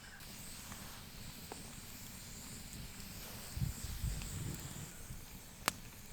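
Faint steady hiss of meat sizzling on a grill over campfire coals, with a few dull low thumps near the middle and a single sharp click near the end.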